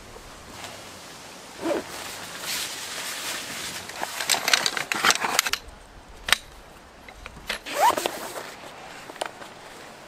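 Tent zipper being pulled in short runs with nylon fabric rustling, a couple of sharp clicks between them.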